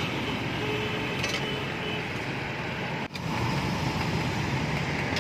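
Steady roadside street noise with traffic running, dipping briefly about three seconds in.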